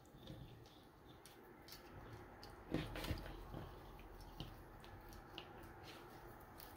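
Cardboard jigsaw puzzle pieces being pulled apart and handled on a table: faint scattered clicks and rustles, with a louder clatter about three seconds in.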